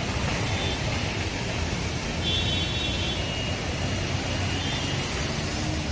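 Steady traffic noise from vehicles driving through floodwater on a waterlogged road, with a faint high tone about two seconds in.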